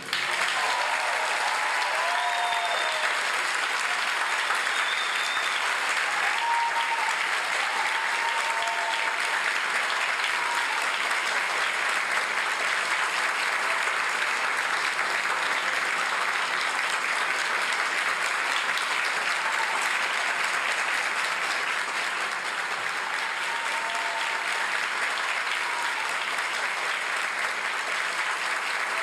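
Theatre audience applauding steadily, with a few short cheers over the clapping in the first ten seconds.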